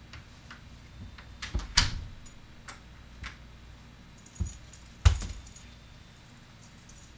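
A house door being pushed shut with a sharp knock about two seconds in, keys jangling, and another sharp knock about five seconds in.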